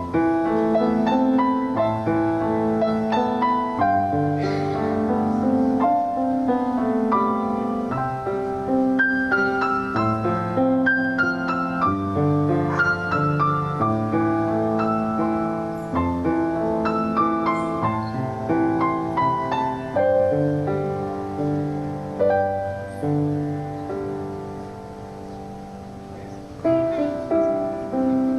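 Solo piano playing a slow, gentle piece, with sustained chords and a softer passage about three quarters of the way through before the playing fills out again.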